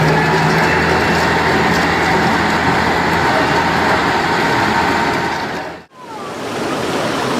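Road traffic noise: vehicles passing with a steady rumble and tyre hiss. About six seconds in it cuts off abruptly and a different, even rushing noise takes over.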